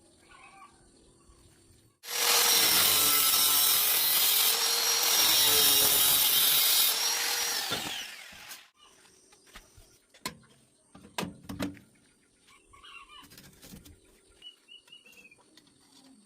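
A handheld power tool runs under load for about six seconds, then winds down. A few sharp clicks and knocks follow, and birds chirp faintly near the end.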